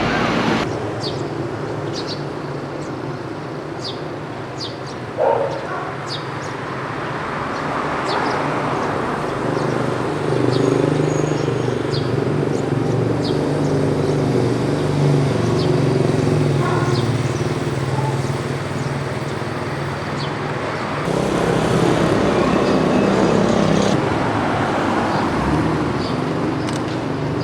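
City street traffic: vehicle engines running, with a steady engine hum that swells in the middle. Light high ticks come about once a second through the first third, and there is a short louder sound about five seconds in.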